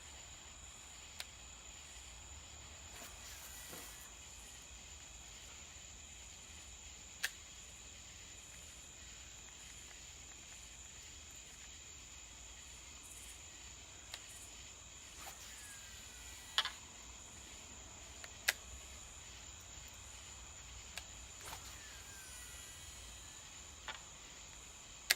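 Shimano Curado DC baitcasting reel being cast repeatedly: sharp clicks from the reel and lure, and a faint falling whine from the reel's digitally controlled brake as the spool spins down. Crickets trill steadily in the background.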